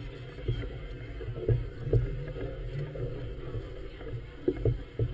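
Choppy river water lapping and slapping against the hull of a moored floating clubhouse, a steady low rumble broken by several sudden dull thumps, two around the two-second mark and a cluster near the end.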